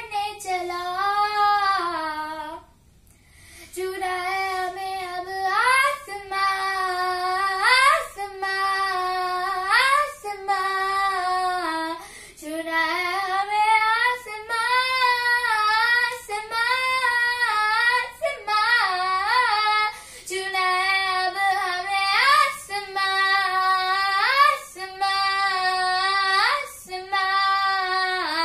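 A young girl singing a Hindi song solo and unaccompanied, in long held phrases with short breaks between them and a longer pause about three seconds in.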